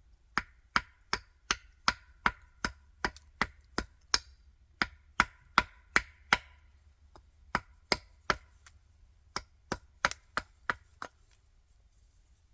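Hand axe chopping a green wild cherry workpiece against a stump: quick, sharp strokes about three a second. A long run of about sixteen is followed by three, then about six, and the chopping stops a little before the end.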